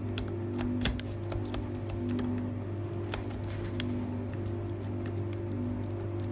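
Lock pick working the pins of a Unique World Ball dimple shutter lock: irregular light metallic clicks and ticks as the pins are reset and worked under tension, the sharpest about a second in.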